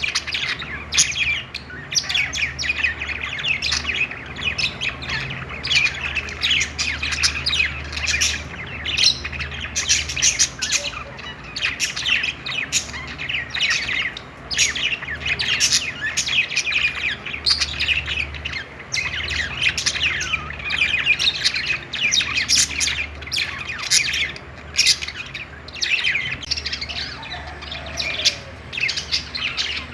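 Many budgerigars chirping and warbling at once, a dense stream of short overlapping calls with no break.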